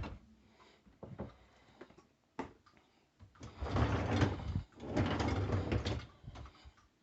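Parts of an open dishwasher being handled: a few light clicks, then two sliding, rattling stretches of about a second each.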